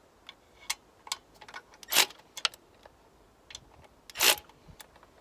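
Small metal clicks and clinks of parts and tools being handled in a car's engine bay, with two louder brief clatters, about two seconds in and near the end, as the intercooler brackets are fitted back on.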